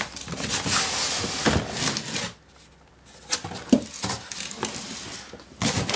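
Cardboard shipping box being opened by hand: flaps pulled back with rustling and scraping of cardboard, then a few sharp knocks as the boxes inside are handled.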